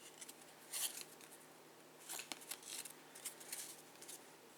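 Faint swishes of trading cards being slid and flipped by hand, a handful of short strokes spread through.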